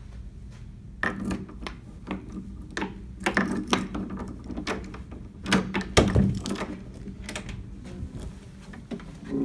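A series of irregular knocks and thuds in a small room, the loudest about six seconds in.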